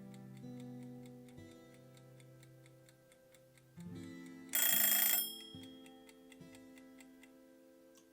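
Soft instrumental background music: held low notes that change every second or two, over a faint ticking beat about four times a second. About four and a half seconds in, a loud burst of noise with ringing high tones lasts under a second.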